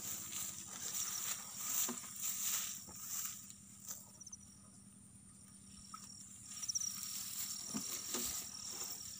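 Open-field ambience: rustling and occasional bumps, with a thin, steady high-pitched insect call, like a cricket's, starting about four seconds in.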